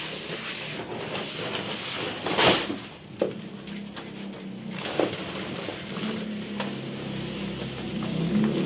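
A large woven plastic rice sack being handled and shifted over a tiled floor, with rustling and a few knocks, the loudest about two and a half seconds in.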